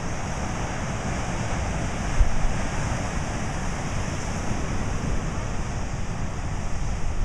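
Ocean surf breaking and washing up the beach, a steady rushing noise, with wind buffeting the microphone as a fluttering low rumble.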